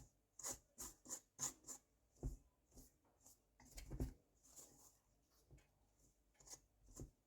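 Dry flour mix being stirred in a bowl: faint, irregular scraping and tapping, a few soft knocks a second.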